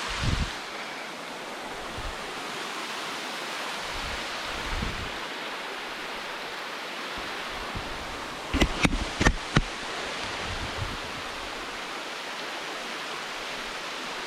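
Waterfall rushing steadily. A quick run of four or five sharp knocks comes about two-thirds of the way through.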